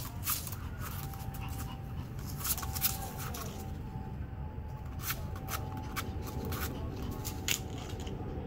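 A chihuahua's paws scratching and rustling in a pot of dirt and dry fallen leaves: a run of quick, irregular scratches, over a steady low rumble.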